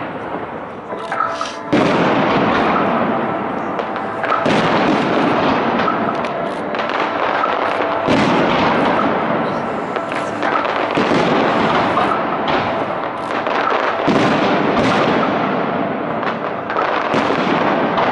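Fireworks display: a dense, continuous barrage of shell bursts and crackling, with a fresh surge of bangs every two to four seconds.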